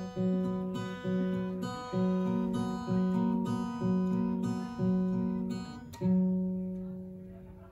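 Acoustic guitar strumming the closing chord of a song, struck again about once a second. A final strum about six seconds in rings out and fades away.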